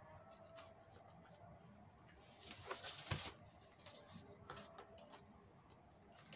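Faint rustling and scraping of rope being handled and pressed onto a container covered in wooden popsicle sticks, loudest around three seconds in with a soft knock.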